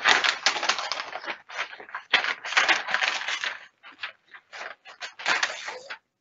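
Paper rustling and crinkling in loud, irregular bursts: bid documents being unfolded and handled.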